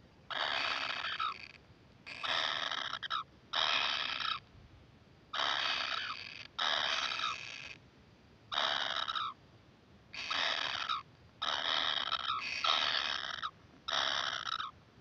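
Kingfisher nestlings giving harsh, rasping begging calls, about ten calls of roughly a second each, one after another with short gaps.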